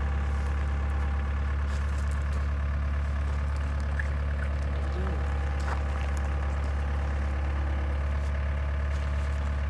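An engine running steadily at an even, idle-like speed, with a strong low hum that does not change.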